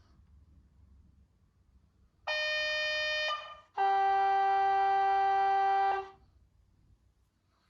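Zimo sound decoder in a Roco H0 model of a DB class 101 electric locomotive sounding its two-tone horn: a higher note for about a second, then a lower note held for about two seconds.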